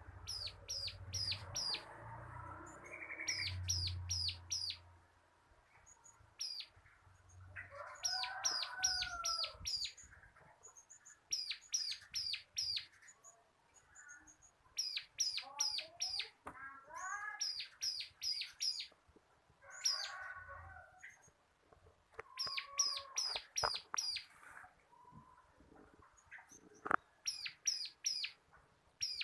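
Bar-winged prinia (ciblek) singing: repeated runs of five to eight rapid, very high, sharp notes every couple of seconds, with lower warbled gliding phrases between them.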